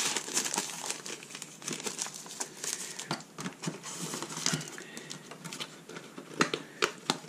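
Paper and cardboard packaging being handled: a sheet of thin paper crinkles, then small cardboard boxes slide and rub together. A few sharp taps come near the end as a small box is closed.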